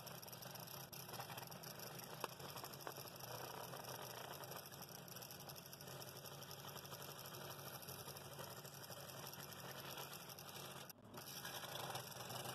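Scroll saw running, its reciprocating blade cutting through a piece of wood with a steady mechanical noise and low hum, which dips briefly near the end.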